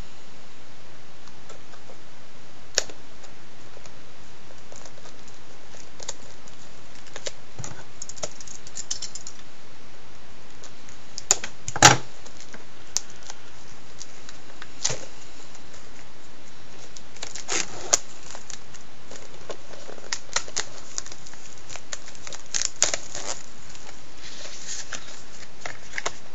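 Plastic wrapping being picked at, torn and peeled off a Blu-ray steelbook case: scattered clicks and crinkles, with a sharp snap about twelve seconds in, over a steady hiss.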